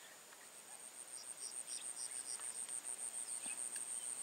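An insect calling with a high-pitched, rapidly pulsing trill at an even rhythm, growing louder about half a second in. A second, lower chirping joins briefly in the middle.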